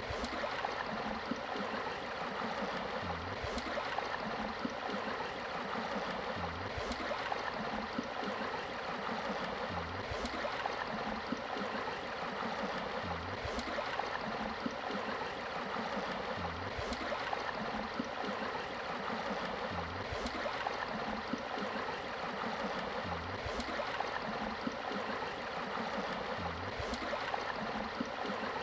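Steady rushing of flowing water, with a faint soft knock and click recurring at even intervals of about three seconds.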